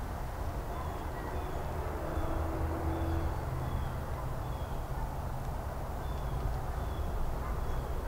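Outdoor street ambience: a steady low rumble, with a small bird repeating a short, high, slightly falling chirp about every half second to second, pausing briefly past the middle.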